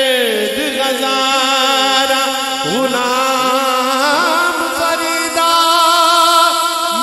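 Male voice singing a Punjabi devotional kalam in long, held, wavering melismatic lines over sustained accompanying notes.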